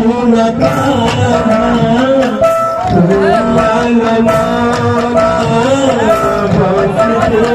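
Kirtan: group devotional singing with long held, wavering notes over steady drum and percussion strokes.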